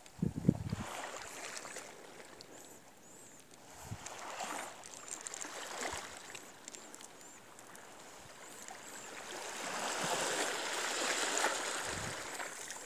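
Outdoor rushing noise, like moving water or wind, that swells about ten seconds in, with a few dull knocks from handling, the loudest just after the start.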